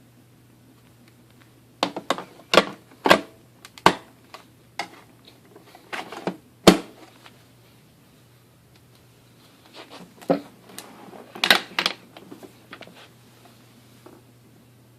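Hard plastic parts of a Kenmore Progressive vacuum cleaner being handled, with the motor off: a series of sharp clicks, knocks and rattles in two bursts, the loudest knock about two-thirds of the way through the first burst.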